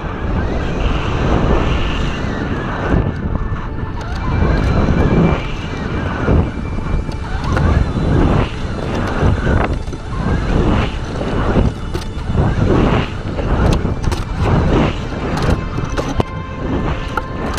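Wind buffeting the microphone of a weather-balloon probe's onboard camera as it falls fast through the clouds, in irregular rushing gusts that come and go every second or so.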